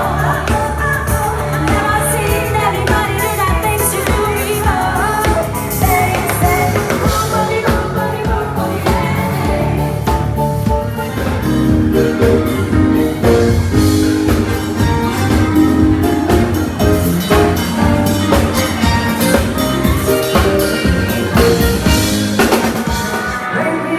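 Live band music played through a PA and heard raw through a phone's microphone: a drum kit keeps a steady beat under the band, and held chords come in about halfway through.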